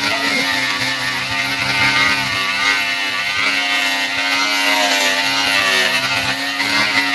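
Angle grinder running against wood as it carves, its motor whine wavering slightly in pitch as the load changes.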